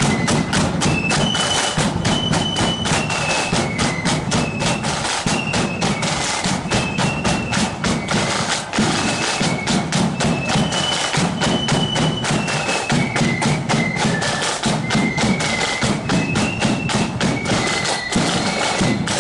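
Marching flute band playing a tune: flutes carry a high melody over rapid snare-drum beating and a bass drum.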